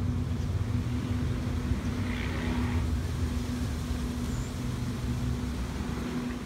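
Waratah electric train standing at the platform with its doors open, humming steadily with a constant low tone.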